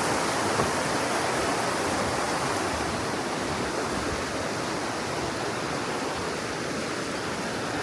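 Steady rush of water from a stream or waterfall cascade, growing slightly fainter toward the end.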